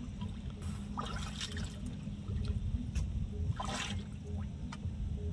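River water splashing as a man swims out, with two brief splashes about a second in and near four seconds, over a steady low rumble.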